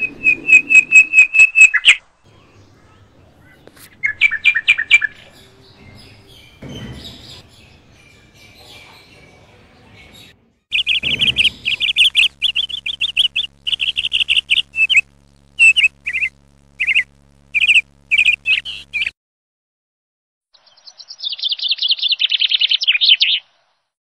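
Canary singing in loud bursts of rapid trills, the longest phrase lasting about eight seconds, with a higher trill near the end.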